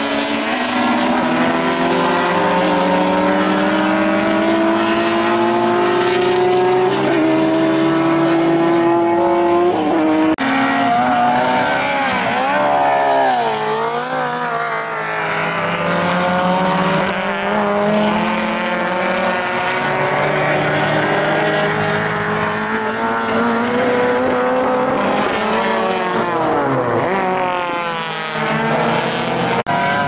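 Race car engines at full throttle, climbing in pitch and dropping back at each gear change, with the pitch swooping down and up again as cars brake, downshift and pass. The sound switches abruptly to another car about ten seconds in.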